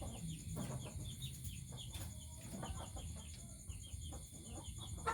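Chickens clucking, with a steady run of short high chirps going on underneath.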